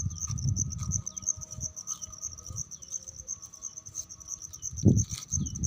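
Insects trilling steadily at a high pitch, a fast pulsing chirr. A low rumble fills the first second, and a short thump comes about five seconds in.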